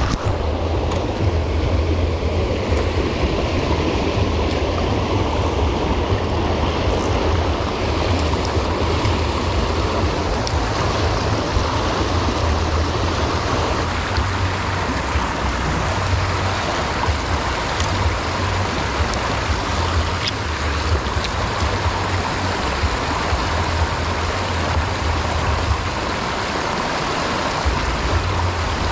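Small river's water rushing steadily, with a steady low rumble underneath.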